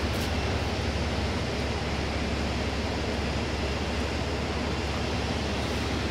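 Steady road and wind noise from inside a moving vehicle: an even rushing hiss over a low rumble, with no change in pace.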